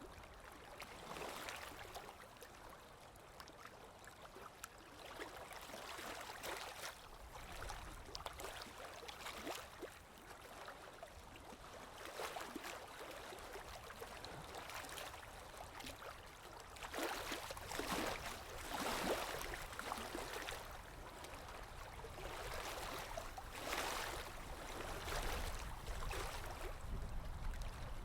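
Sea waves washing in and drawing back, a steady wash that swells and ebbs, with a louder surge about two-thirds of the way through and another near the end.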